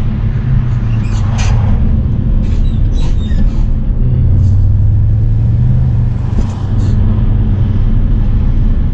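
Mercedes-AMG C63 S's 4.0-litre twin-turbo V8 running at low, steady revs while the car cruises slowly, heard from inside the cabin as a continuous low hum with road noise, a little stronger about halfway through.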